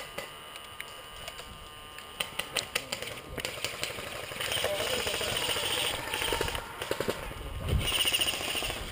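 Airsoft guns firing in short rapid strings of sharp clacking shots, a burst about two seconds in and more near the end.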